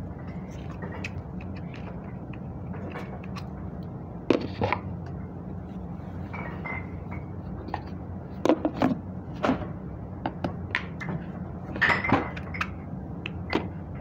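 A steady low hum with scattered clicks and knocks, the louder ones about four, eight and twelve seconds in.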